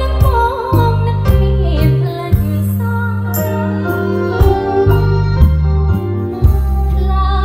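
Music played back loud through a Sun Sound V2 powered speaker stack, a subwoofer with a column speaker on top: a deep bass line of held notes that change pitch every second or so, with sharp drum hits.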